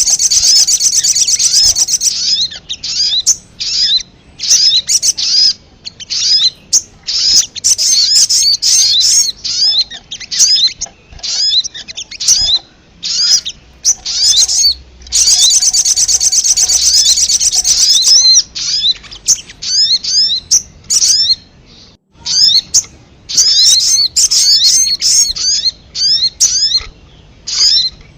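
Sogon sunbirds calling on a bird-trapping lure recording: high, sharp chirps in rapid bursts. Long continuous trills come at the start and again about halfway through, with a brief pause a little later.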